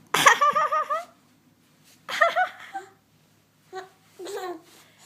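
Six-month-old baby giggling: a loud run of quick, high-pitched giggles at the start, a second shorter run about two seconds in, then a few softer short baby sounds.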